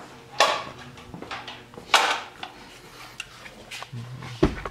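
Short clattering and rustling noises, as of hard parts being handled: two louder bursts about half a second and two seconds in, a few light clicks between them, and a dull thump near the end.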